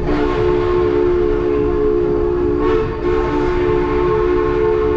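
Narrow-gauge steam locomotive's chime whistle sounding one long, steady blast, a chord of several notes held throughout, over the low rumble of the train.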